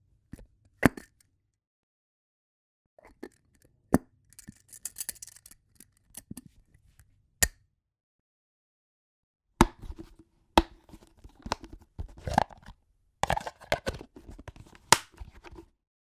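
Jars and containers being handled: sharp clicks and knocks of lids and containers, a short scraping twist about five seconds in, then a busier run of clinks and taps from about ten seconds in, with silent gaps between takes.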